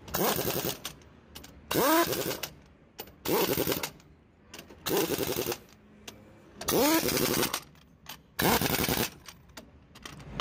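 Heavy-duty pneumatic impact wrench hammering on a truck's wheel nuts in six short rattling bursts, each about half a second long and about every one and a half to two seconds, several opening with a rising whine as the air motor spins up.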